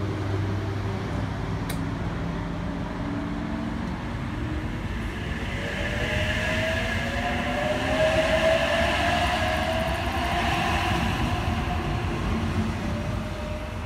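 Sydney Trains H-set (OSCAR) electric multiple unit pulling out and passing at close range: rumble of wheels on rail with a motor whine that rises slowly in pitch as it gathers speed.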